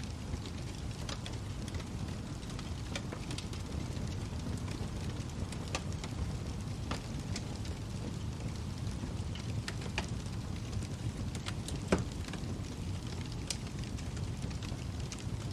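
Wood fire burning in a fireplace: a steady low rumble of flames with scattered sharp crackles and pops, and one louder pop near the end.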